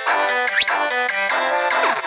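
Background music: busy electronic-sounding melody with quick-changing notes and a couple of sliding pitch sweeps.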